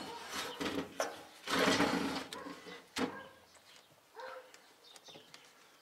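A large rabbit shifting and scrabbling on the wooden floor of a metal hutch: a few bursts of scraping and rustling, with a single sharp knock about three seconds in.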